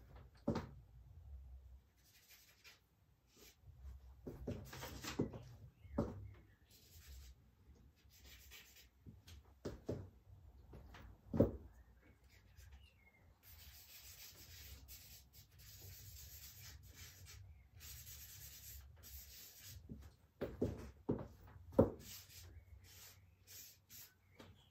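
Stick charcoal scratching and rubbing on paper on an easel in irregular strokes, with a longer stretch of steady back-and-forth shading about halfway through and a few sharp taps.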